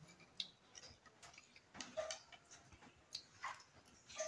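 Faint, scattered clicks of forks on a plate, mixed with soft chewing and mouth sounds of people eating.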